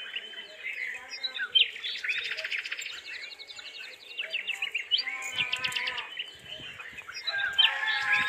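Birds chirping in rapid, repeated trills. From about five seconds in, and again near the end, a drawn-out call with several overtones comes in over them.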